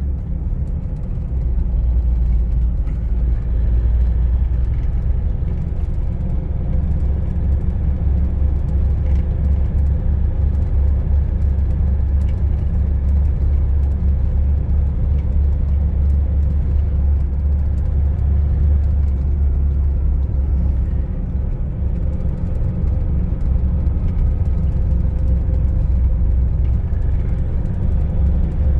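Inside the cab of a Toyota Hilux 2.5 pickup driving at about 50 km/h: a steady, loud low rumble of road and drivetrain noise. The truck is being driven at the speed where it vibrates all over, the fault under diagnosis.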